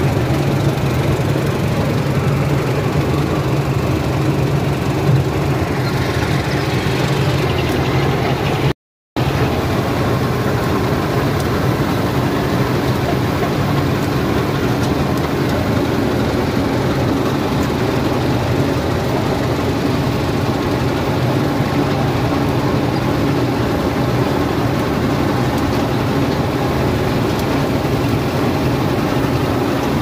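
Combine harvester's diesel engine and harvesting machinery running steadily, heard from the operator's seat as it drives through standing wheat. The sound drops out completely for a split second about nine seconds in.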